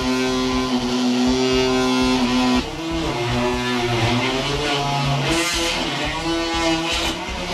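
Guitar music with a held chord, then, from about two and a half seconds in, a handheld electric sander running against the kayak's fibreglassed bulkhead. Its motor pitch wavers up and down as it is pressed to the work.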